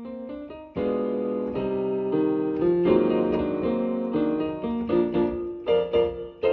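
Instrumental piano music: held chords that swell about a second in, then quicker separate notes from about five seconds in.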